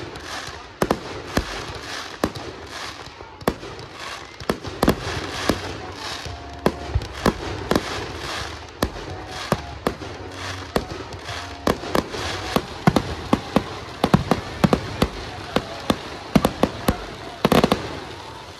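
Fireworks display: aerial shells bursting in an irregular barrage of sharp bangs and crackles, several reports a second over a steady hiss of burning stars. A denser cluster of bangs comes near the end.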